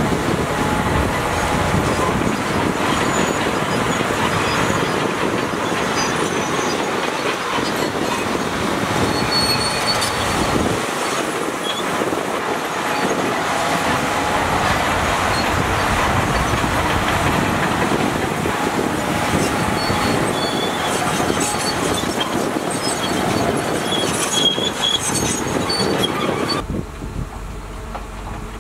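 Shantui crawler bulldozer working: its diesel engine running under load while the steel tracks clank and squeal. The sound drops abruptly near the end.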